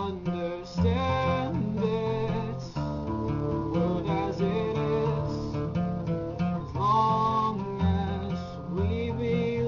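Acoustic guitar strumming chords, the chords changing about every second.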